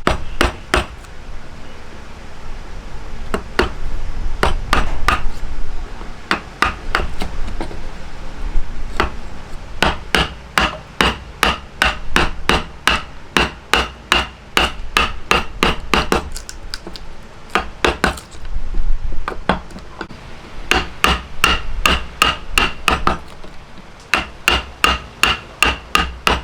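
Repeated hammer blows in quick runs of about two to three strikes a second, many with a short ringing tone.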